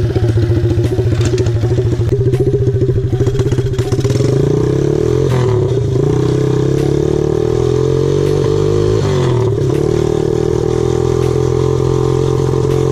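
A pit bike's single-cylinder engine running through a straight-pipe exhaust with no muffler, very loud, accelerating from a standstill. Its pitch climbs from about four seconds in, dips briefly about nine seconds in, then holds steady.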